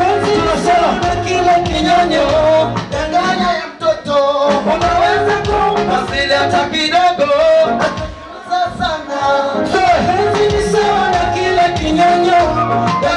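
Live stage performance: a man singing into a handheld microphone over loud accompanying music with a steady beat.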